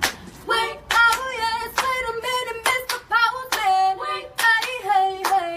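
Singing of a slow melody with held notes, over rhythmic hand claps about twice a second.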